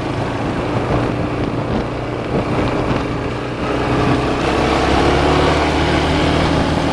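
ATV engine running steadily while riding over rough, rocky ground, with a constant rushing noise over the engine hum. The engine note shifts slightly about four seconds in.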